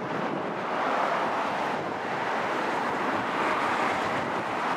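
Jet airliner passing on its landing approach: a steady rush of jet engine noise that swells a little about a second in.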